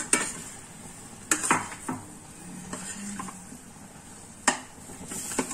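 Steel ladle scraping and clinking against a stainless-steel pan as chopped ridge gourd pieces are stirred into frying masala, with a faint sizzle underneath. A few sharp clinks of metal on metal stand out: at the start, about a second and a half in, and near the end.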